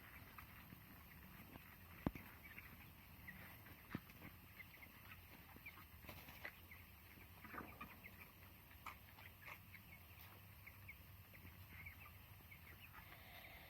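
A flock of three-week-old broiler chickens cheeping faintly with many short, high calls, with a few sharp knocks.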